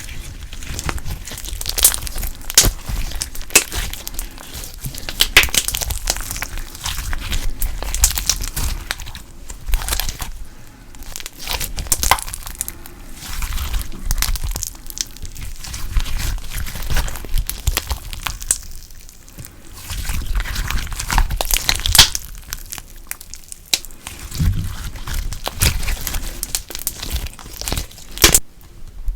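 Slime being squished and worked by hand, giving dense crackling and clicking sounds that swell and ease in waves.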